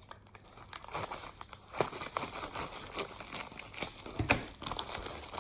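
Shipping packaging being unwrapped by hand: irregular crinkling and tearing with scattered small clicks and rustles.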